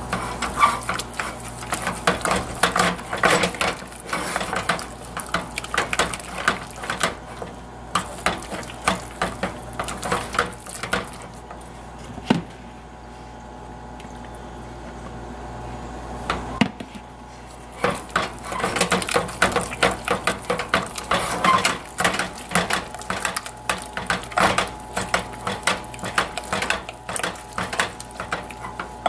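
Wooden spoon scraping and knocking against a stainless steel saucepan as thick choux pastry dough is stirred vigorously to beat in eggs, in rapid, irregular strokes. The stirring stops for about four seconds midway, then starts again.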